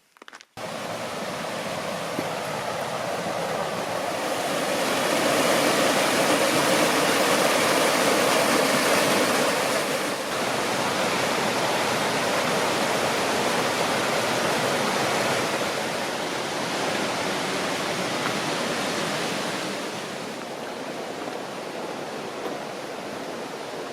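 Rushing stream water, a steady noisy hiss that starts abruptly, grows louder over the first few seconds, then eases a little near the end.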